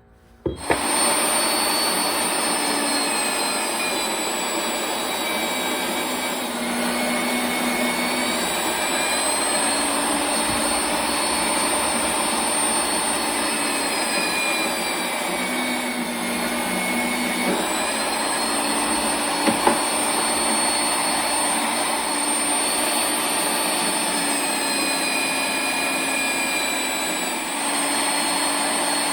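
A power machine tool cutting steel stock, running steadily with a motor whine that dips slightly in pitch now and then as the cut loads it. It starts suddenly about half a second in, and two short clicks come about two-thirds of the way through.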